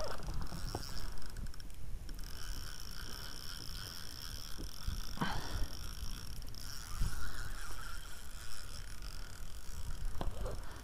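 Wind rumbling on the microphone in an open boat, with a few light knocks from the boat and fishing gear and a faint steady high whine; a short squeak drops in pitch about five seconds in.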